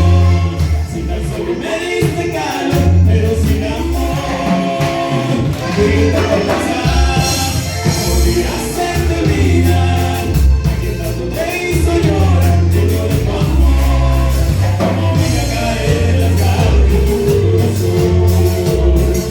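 Band music with sung vocals over a steady, heavy bass line and drums.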